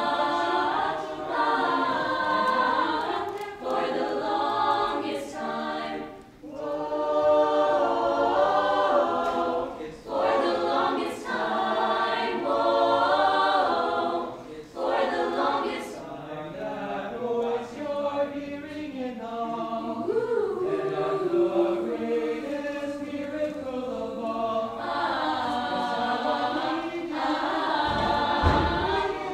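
A mixed choir of teenage voices singing in harmony, in phrases with short gaps between them.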